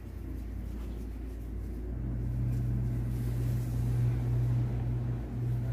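A steady low machine hum, growing a little louder about two seconds in.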